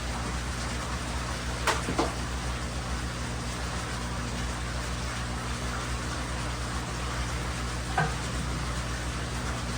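Steady hiss of running aquarium air pumps and bubbling, splashing tank water over a low electrical hum. A few light clicks or knocks come about two seconds in and again near the end.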